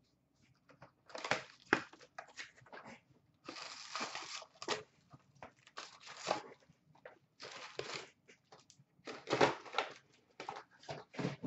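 Upper Deck SP Authentic hockey card box and its foil packs being opened and handled: irregular bursts of crinkling and rustling with a few sharp clicks.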